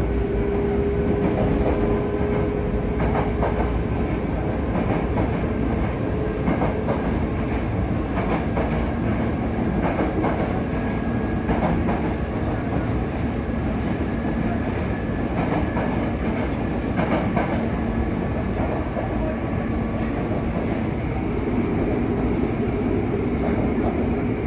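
Cabin running noise of a Yokohama Municipal Subway 3000R train under way: a steady rumble of wheels on rail with scattered clicks over rail joints. A faint high whine from its Mitsubishi IGBT-VVVF drive slowly falls in pitch.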